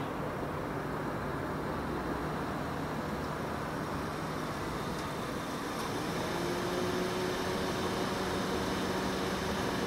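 Steady road traffic noise from a busy arterial road, with a low steady hum. About six seconds in it grows slightly louder as a low steady drone sets in.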